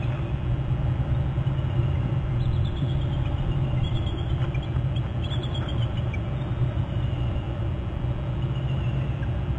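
Bald eagles giving faint high trilling calls: quick series of short piping notes that step down in pitch, heard a few times in the middle. A steady loud low rumble runs underneath.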